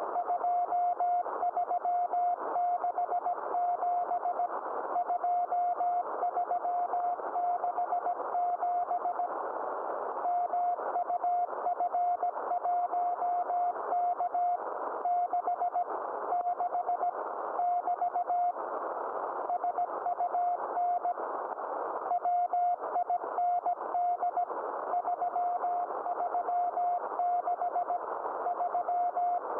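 Morse code (CW) from the DK0WCY aurora beacon, received on a Yaesu FT-991A shortwave transceiver: a single steady tone keyed on and off in dots and dashes, sending the beacon's report of ionospheric and solar-wind figures, over band hiss.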